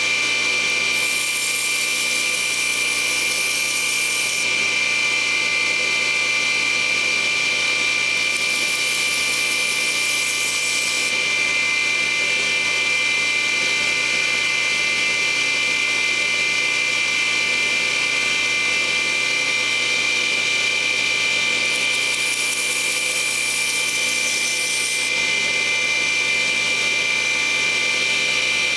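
Small power tool motor running steadily with a high whine, with hissing stretches of a few seconds each, about a second in, around eight to eleven seconds in and again late on.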